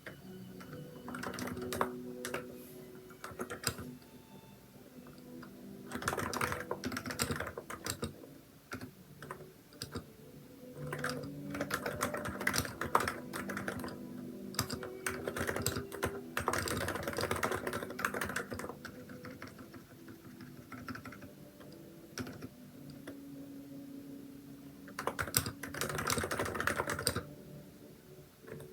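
Typing on a Hansung electrostatic capacitive keyboard with XDA-profile keycaps: quick runs of keystrokes lasting a second or two, separated by short pauses with only scattered key presses.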